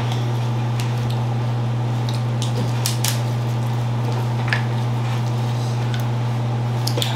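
Small scattered cracks and clicks of boiled crab-leg shells being broken apart by gloved hands, over a steady low hum throughout.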